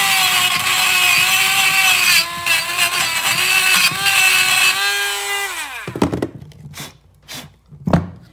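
Bench grinder's wire wheel running and scrubbing rust off a rusty brake caliper mounting bracket pressed against it: a steady motor hum under loud rough brushing. About five and a half seconds in the motor is switched off and winds down with a falling pitch, followed by a few sharp knocks.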